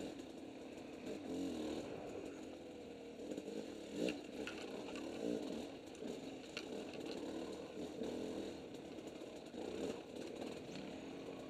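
Two-stroke dirt bike engine on the riding bike, revving up and down over and over as it works along a twisty trail. A few sharp knocks and rattles from the bike going over bumps, the loudest about four seconds in.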